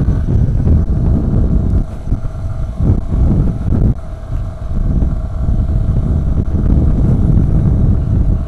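Motorcycle engine running at a steady cruise, largely covered by heavy wind buffeting on the microphone.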